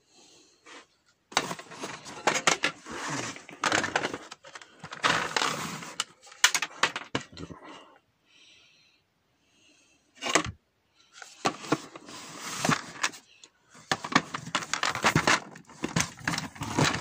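Small metal-cased electronic components clattering and rattling as a hand rummages through a cardboard box of them, with rustling and knocks. It comes in several bursts of dense clicking, with a single sharp knock in a short pause about two-thirds through.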